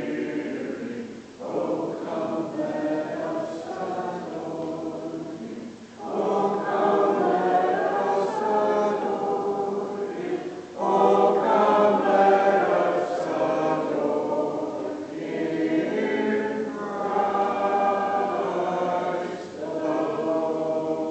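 Church congregation singing a hymn together in phrases of a few seconds, with a short breath between phrases.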